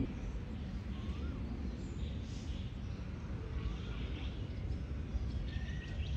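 Faint birds chirping, with a few short rising-and-falling calls, over a steady low background rumble.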